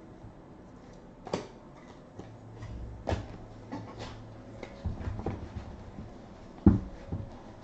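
Scattered knocks and clicks of things being handled and set down on a table, the loudest a sharp knock near the end, with a low hum for a few seconds in the middle.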